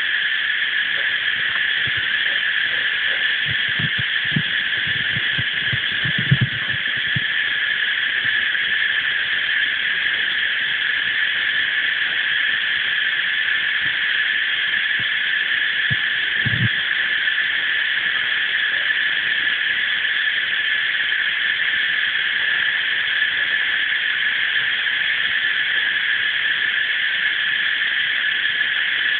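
Dense, steady chorus of cicadas buzzing at dusk, unbroken throughout. A few short low thuds come around four to seven seconds in, and one more a little past halfway.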